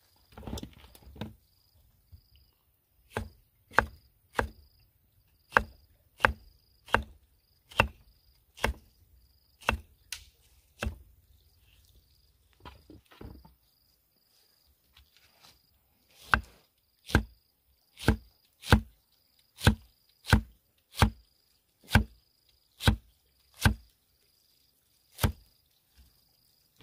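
A cleaver slicing star fruit on a wooden chopping block, each cut ending in a sharp knock on the wood. The strokes come steadily, about one and a half a second, stop for a few seconds near the middle, then resume in a longer run.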